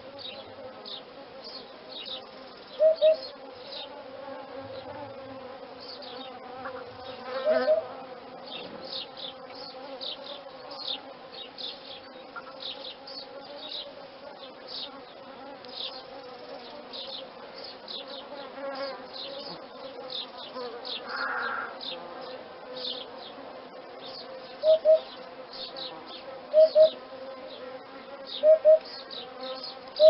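Eurasian hoopoe calling its low two-note 'hoop-hoop', a couple of times early, then repeated every couple of seconds near the end. A steady background of insects chirping and buzzing runs underneath.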